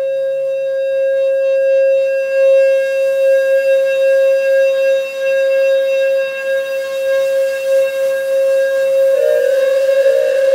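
One steady electronic tone from a Eurorack modular synthesizer patch, sustained in a feedback loop through a chain of Make Noise echo modules. About nine seconds in, its pitch starts to wobble.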